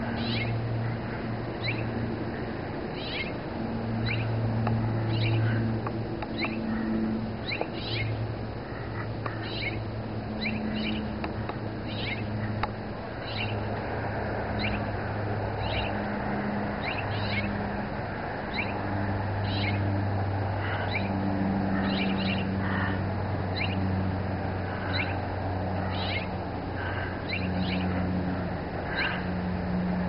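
Birds calling with short, high, downward-sliding chirps, about one a second, over a low hum that comes and goes.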